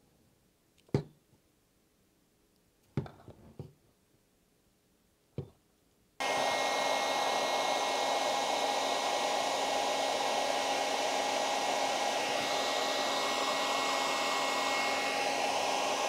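A few light handling clicks, then about six seconds in a Rexbeti heat gun switches on and runs steadily, a fan whir with a few fixed tones in it, blowing hot air onto heat-shrink tubing over a banana plug.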